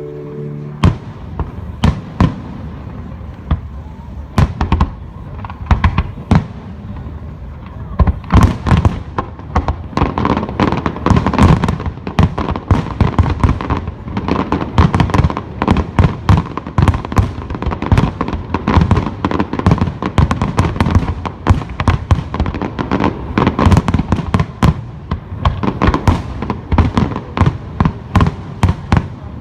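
Fireworks display: scattered loud bangs of bursting shells, building about eight seconds in into a dense, continuous barrage of rapid bangs.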